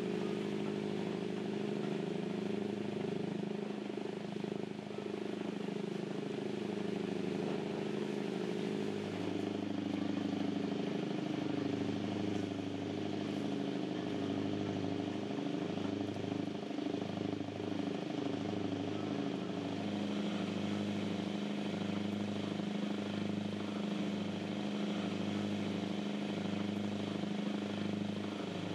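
Cruise boat's diesel engines running steadily under way, heard on board as a low drone with a slow regular pulsing; the engine note shifts slightly about ten seconds in and again near twenty seconds.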